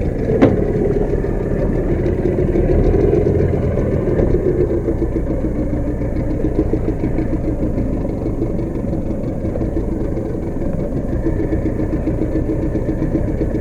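A small fishing boat's engine running steadily, its pitch slowly falling as it eases off. There is a sharp knock about half a second in.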